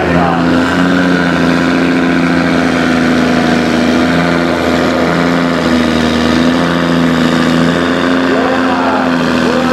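Big farm tractor's diesel engine running at a steady speed, holding an even drone with a slight change in pitch partway through.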